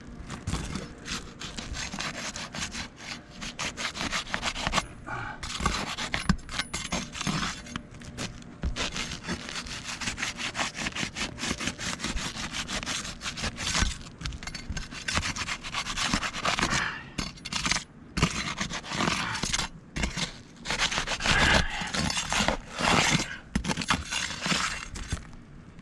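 Continuous scraping and rubbing: a dense run of scratchy strokes broken by short pauses.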